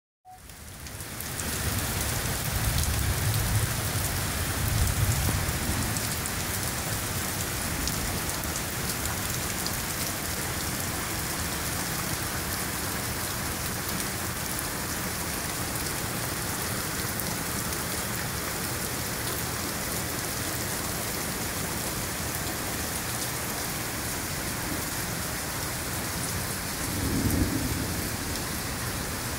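Heavy rain falling steadily on pavement and foliage, a constant downpour hiss. Low rumbles of thunder swell in the first few seconds and again briefly near the end.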